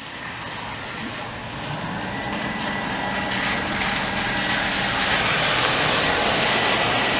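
A car approaching along the flooded street, its tyre and engine noise growing steadily louder, with a steady high tone over it from about two seconds in.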